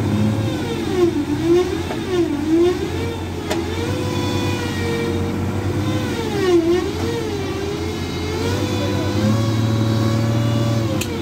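Diesel engines of a JCB backhoe loader and a stuck truck working hard under heavy load. The revs sag and recover several times as the machine strains against the truck, over a steady low engine drone, with a couple of sharp knocks.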